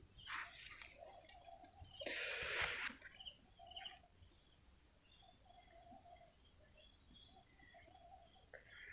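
Faint rural ambience of insects trilling steadily at a high pitch, with scattered bird chirps and calls. A brief rustling noise comes about two seconds in.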